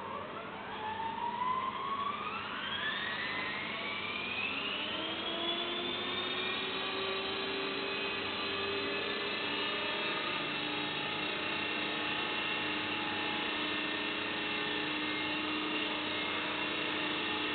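Small electric RC helicopter spooling up from rest: the motor and rotor whine rises steadily in pitch over the first six seconds or so, then holds as a steady high whine with several tones.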